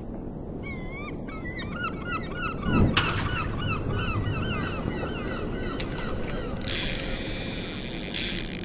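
Seagulls calling over and over in a quick run of short, wavering cries, above a low rumbling background. A deep thump comes about three seconds in, and a loud whooshing hiss near the end.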